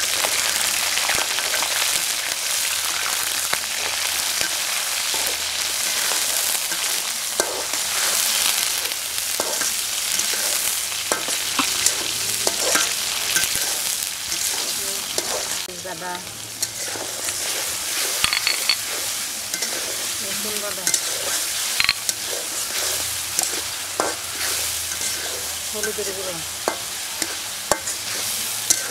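Small prawns sizzling as they fry in hot oil in a metal karahi, stirred with a metal spatula that scrapes and clicks against the pan.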